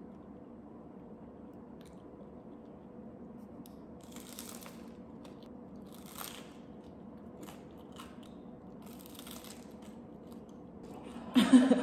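Crisp crunching bites and chewing of a cucumber sandwich on toasted bread, a handful of short crunches from about four seconds in. Near the end a much louder voice cuts in.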